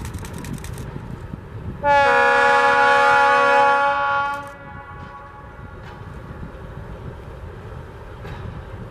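A Czechoslovak class 751 diesel locomotive sounds its horn: one steady blast of about two seconds. It rises over the rumble of a freight train rolling past, with the blast fading out as the wagons go by.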